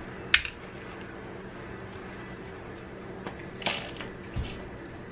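A few light clicks and taps of salad and its container being handled while being weighed, with a sharp click about a third of a second in and a dull thump near the end, over a steady low hum.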